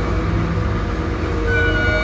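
Heavy diesel engine of a motor grader running with a steady low rumble; several steady high tones join about one and a half seconds in.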